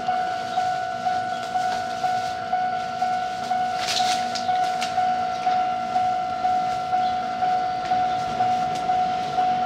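Electronic level-crossing warning bell ringing on and on at about two strikes a second, the signal that a train is approaching. A few sharp clicks about four seconds in.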